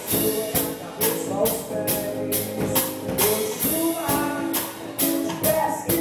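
A band playing a song: a sung melody over a steady beat of about two strikes a second, with tambourine.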